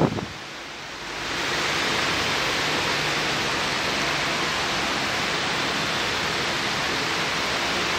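A steady, even hiss of noise that swells about a second in and then holds level.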